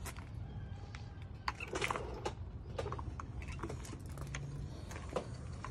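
Scattered clicks and light knocks of a garden hose and its fitting being handled and loosened, a cluster of them about two seconds in, over a steady low rumble from the phone being moved.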